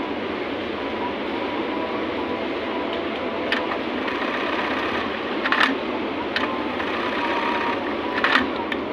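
Steady mechanical din of industrial sewing machines running, with short sharp clicking sounds about a third of the way in, a little past halfway and near the end; the last two are the loudest.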